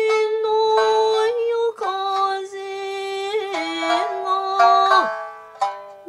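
A woman singing kouta in long, held notes that step and waver between pitches, accompanying herself on a slightly short shamisen pitched in the high 8-hon key, its plucked notes sounding at the phrase changes.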